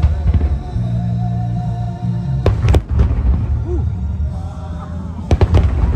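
Aerial fireworks bursting in sharp bangs, a quick group of three about halfway through and another group near the end, over a steady low rumble and music.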